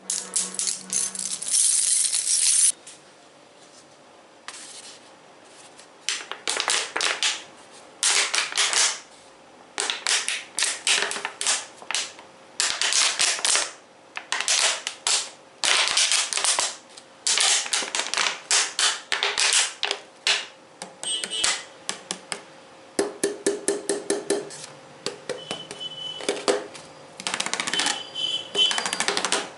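Rapid tapping on assorted hard objects for ASMR, in quick runs of taps a second or two long with short pauses between them. In the later part some taps leave a faint ringing tone.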